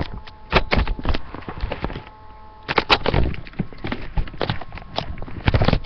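Handling noise: an irregular run of knocks and clattering bumps as the camera is moved about, with the densest clusters about three seconds in and near the end.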